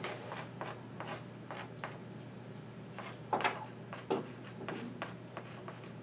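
Chalk writing on a blackboard: a series of short, irregular taps and scratches as the letters and symbols are formed, over a steady low hum.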